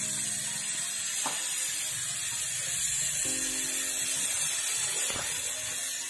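Gas brazing torch flame hissing steadily while it heats a copper charging pipe being joined to a refrigerator compressor, under background music chords that drop out about a second in and come back past the halfway point.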